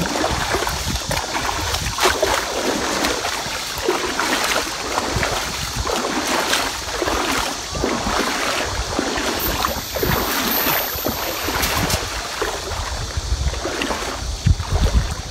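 Water splashing as legs wade through shallow river water, a splash every second or so, over a low rumble of wind on the microphone.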